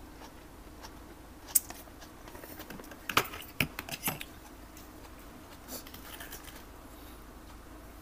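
Crisp snaps and crunches of raw vegetables being broken and bitten while eating: one sharp snap about a second and a half in, a quick run of sharp crunches about three to four seconds in, and softer ones around six seconds.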